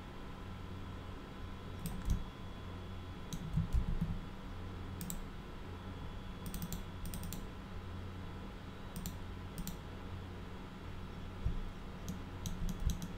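Computer keyboard keys and mouse buttons clicking now and then, singly and in short clusters, over a steady low electrical hum.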